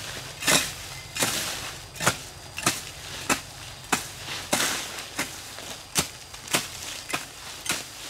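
Repeated chopping with a hand-held blade: a steady run of sharp strikes, about one and a half a second, some with a swish between them.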